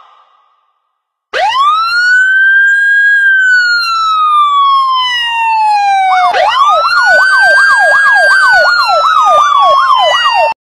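Voices imitating a police siren: one long wail that rises and then slowly falls, joined about six seconds in by a fast up-and-down yelp of about three swoops a second over a second rising-and-falling wail. It starts after a short silence and cuts off abruptly near the end.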